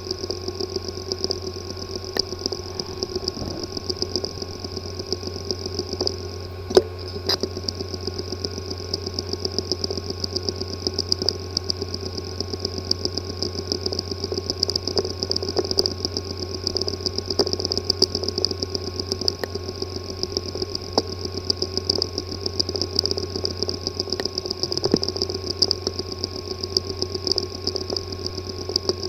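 Hard drive with a physically damaged disk assembly, spinning with a steady hum and high whine under rapid, regular ticking, with one sharper click about seven seconds in.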